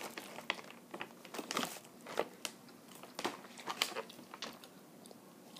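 A snack wrapper crinkling and a child biting and chewing a chocolate snack: quiet, irregular crackles and clicks.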